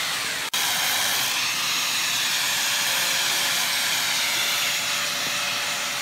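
Electric angle grinder with a sanding disc running steadily against wood, giving a continuous hiss. The sound breaks off for an instant about half a second in, then carries on.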